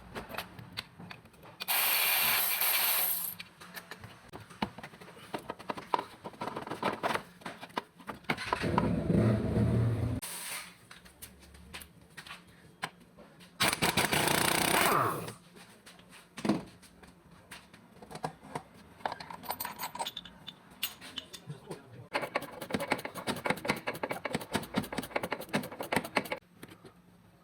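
Workshop work on a car engine: irregular clinks and scrapes of tools on metal, broken by three loud bursts of noise a couple of seconds long, and a run of dense clicking near the end.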